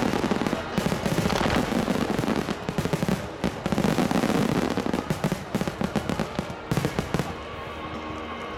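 Fireworks barrage: many aerial shells bursting in rapid, overlapping bangs that thin out about seven seconds in.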